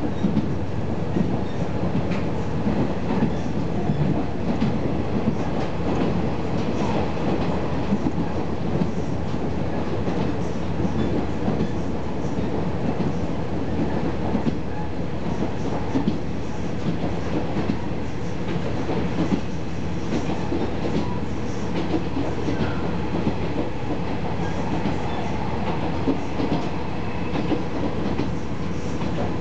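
KiHa 40 series diesel railcar running along the line, heard inside the passenger cabin: a steady rumble of engine and wheels on rail, with occasional light clicks.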